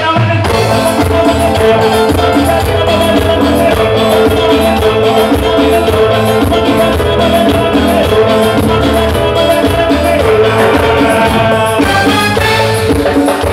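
Live Latin dance band playing loud, with drums and keyboard keeping a steady rhythm.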